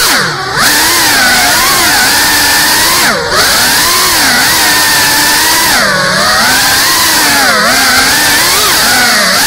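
GEPRC CineLog 35 ducted cinewhoop FPV drone's motors and propellers whining, the pitch sliding up and down constantly with the throttle over a hiss of prop wash. The whine drops away sharply about half a second in and again about three seconds in as the throttle is chopped, with smaller dips later.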